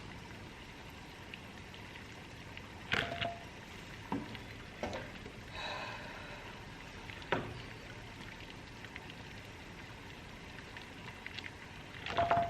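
Water boiling in a pot on the stove, a faint steady bubbling hiss, with a few scattered clinks and knocks of kitchen utensils and dishes. Two of them, about three seconds in and near the end, ring briefly.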